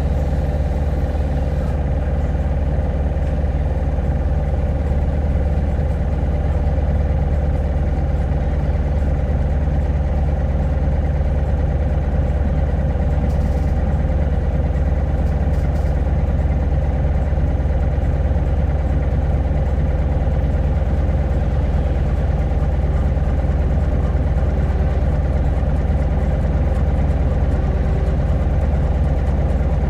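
Hino Blue Ribbon hybrid city bus's diesel engine running steadily at an unchanging pitch, heard inside the passenger cabin.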